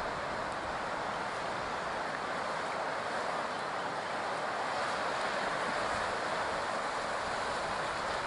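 Steady rush of ocean surf breaking on a beach, mixed with wind.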